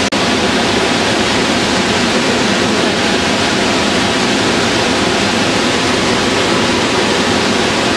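Creek rapids: fast water rushing and churning over rocks, a steady, loud, even rush of white water.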